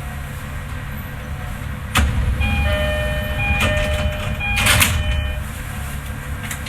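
Commuter train doors working: a sudden clunk, then an electronic door chime repeating for about three seconds, with bursts of air hissing from the door engines.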